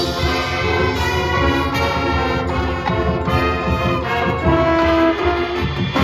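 High school marching band playing, with the brass section carrying sustained chords over steady drum hits.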